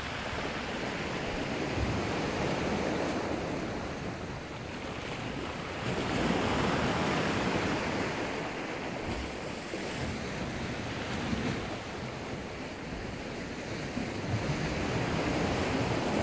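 Rough sea washing against a rocky shore, swelling and easing every few seconds, with wind buffeting the microphone.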